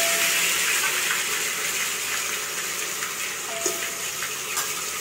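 Ginger-garlic paste sizzling in hot oil in an aluminium pressure-cooker pot, a steady hiss that eases slightly, with a metal ladle stirring and clicking against the pot a couple of times.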